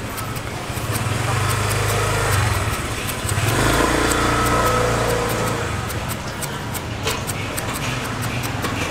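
Motor vehicle engine running close by in the street: a steady low hum that grows louder about three and a half seconds in and eases off before six seconds. Quick light ticks of a peeler blade cutting fruit skin run over it.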